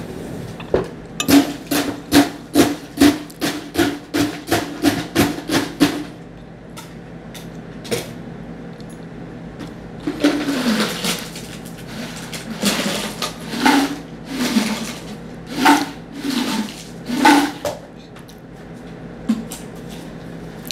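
Household hammering: a quick run of sharp hammer blows, about three a second, for some five seconds. After a pause come a couple of single knocks, then a series of longer, rougher strokes about once a second.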